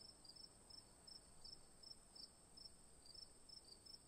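Faint chirping of insects: a steady high-pitched buzz with short, high chirps repeating a few times a second.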